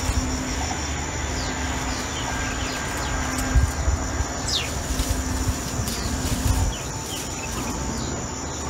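Garden ambience: birds giving short, falling chirps and a thin, steady high insect drone, over low thumps and rustling from handling the vines while bitter melons are picked.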